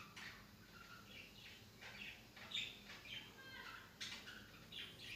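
Faint bird chirping: short high chirps repeating irregularly, a couple a second.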